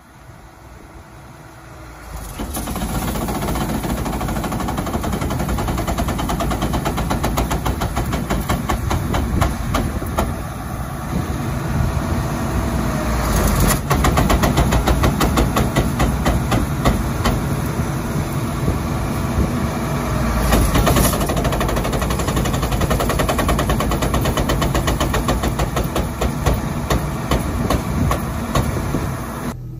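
Combine unloading beans into a truck: the unloading auger and machinery run loudly over the engine, with beans pouring. It kicks in about two seconds in and shuts off near the end.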